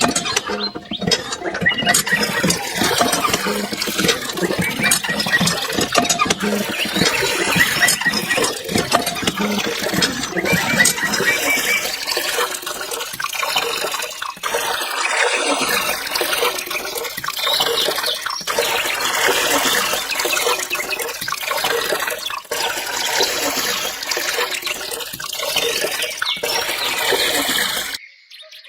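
Water running and splashing steadily, with abrupt changes in the sound every few seconds.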